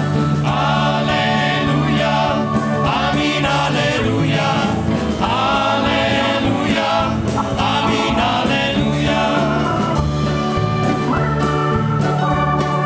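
Church youth choir singing a praise song in unison with a live band: acoustic guitar, bass guitar, drums and brass, with a steady beat.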